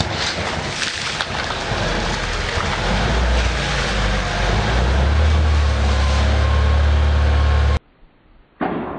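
Car engine running while cola foam sprays and spatters out of the exhaust pipe. A hissing, splashing noise sits over the engine, and the engine's low hum grows louder over the first few seconds. It cuts off abruptly about a second before the end.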